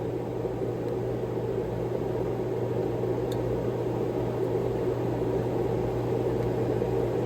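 Steady mechanical hum, like a fan or air-conditioning unit running, with a faint click about three seconds in.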